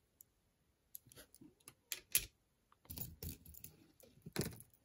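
Jewelry being handled by hand on a tabletop: scattered light clicks of beads and chain against each other and the table, growing into a denser run of clicking and rustling over the last two seconds.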